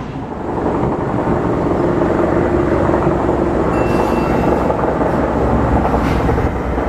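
Kintetsu express train made of an 8000-series and a 9020-series set coupled together, running at the platform: a steady rumble of motors and wheels on the rails. A brief thin high squeal comes about four seconds in.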